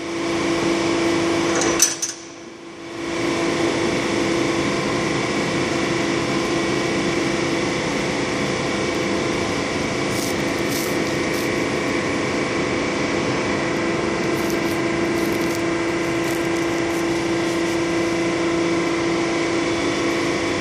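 Steady machine hum with a strong steady tone and overtones. About two seconds in it cuts out with a click and comes back up a second later. A few faint high clicks come in the later part.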